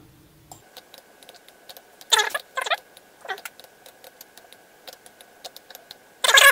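Computer mouse clicks, several a second, as voxel pieces are selected and dragged in MagicaVoxel. Short high-pitched sliding cries come twice about two seconds in, and a louder one starts near the end. A faint steady high whine sits underneath.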